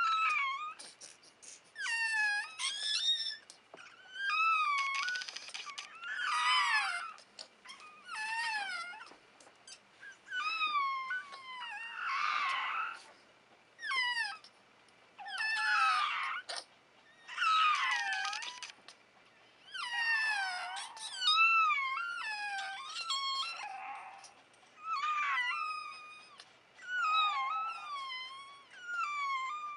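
Newborn Phalène puppies, a few hours old, crying: thin, high squeaks and whines that slide up and down in pitch, one after another with short pauses, sometimes two at once.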